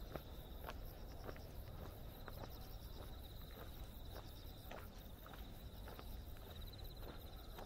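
Footsteps on a paved path at a steady walking pace, with insects trilling continuously in the grass, a fast pulsing chirr.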